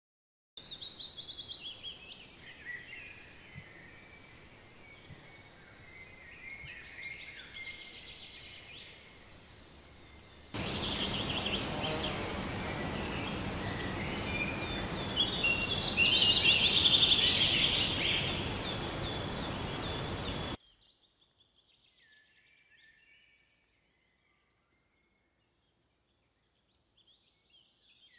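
Songbirds singing in woodland over a steady background hiss, recorded straight from a camera-mounted shotgun microphone at several recording levels. The recording cuts abruptly between takes: a moderate stretch, then a louder and hissier one (auto level, +20 dB gain) with the strongest song, then a very faint stretch, a few seconds of dead silence and another faint take (manual level 2) near the end.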